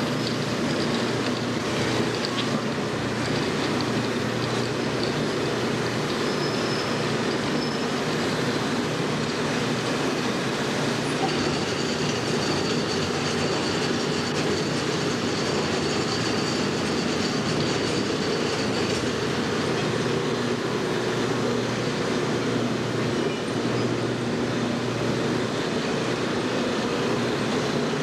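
Automatic PET bottle washing, filling and capping line running: a steady mechanical din with a low hum, and a faint high whine for several seconds in the middle.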